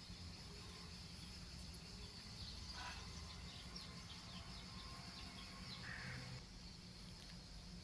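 Faint outdoor ambience: a steady high insect drone with a flurry of short bird chirps around the middle, over a low background rumble.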